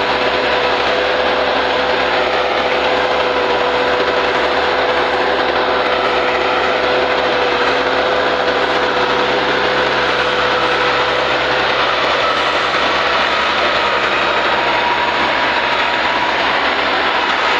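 Massey Ferguson 260 tractor's three-cylinder diesel engine running steadily under load as it pulls a heavily loaded trailer, with a constant whine over the engine noise.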